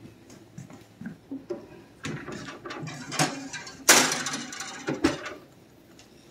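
Metal cheesecake pan being slid into a countertop toaster oven with a clatter, then the oven door shutting with a sharp clack about five seconds in.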